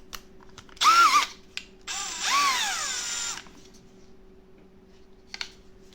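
Milwaukee M12 Fuel brushless cordless drill/driver, fitted with its straight-on head attachment, run free with no load in two trigger pulls. First a short blip of motor whine about a second in, then a longer run of about a second and a half that speeds up and winds down, the pitch falling as it stops.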